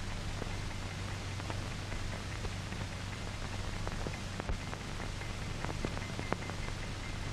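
Surface noise of an old 1940 film soundtrack: a steady hiss and low hum, with scattered irregular clicks and crackles.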